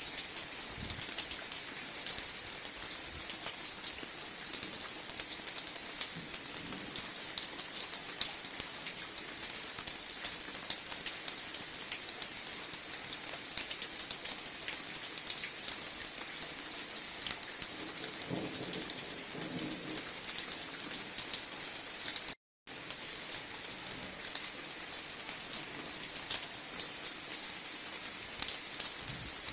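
Steady rain falling and pattering on surfaces, a dense even hiss of drops. It breaks off for an instant about two-thirds of the way through.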